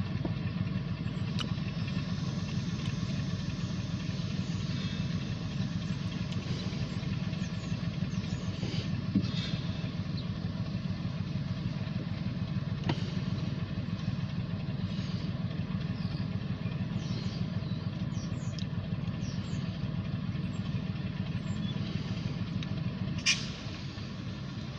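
Diesel freight locomotive engines running with a steady low drone, with a few faint scattered clicks and a sharp knock near the end.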